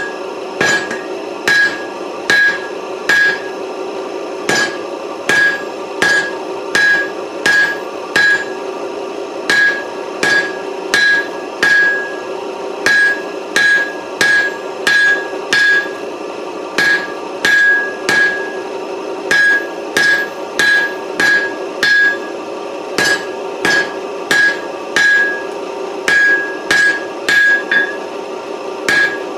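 Heavy hand hammer striking hot 4140 steel on an anvil, drawing out a four-sided taper: steady blows about two a second in runs of three to five with short breaks, each blow ringing brightly. A steady hum runs underneath.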